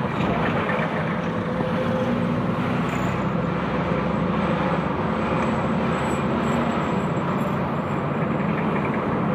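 Steady engine hum and road noise of a moving car, heard from inside its cabin.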